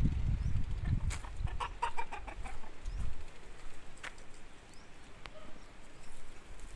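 A chicken clucking: a quick run of short notes starting about a second in, with a low rumble on the microphone at the start and a couple of sharp clicks later.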